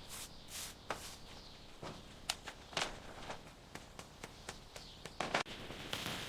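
Faint, irregular taps, clicks and scuffs, a few a second, with sharper ones about two and a half seconds in and a short cluster near the end.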